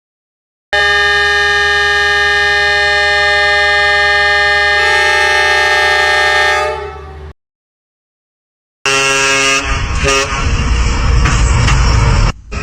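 A train horn sounds one long chord of several notes that shifts in pitch partway through and then fades out. After a short gap a second, louder horn clip comes in over a heavy, noisy rumble.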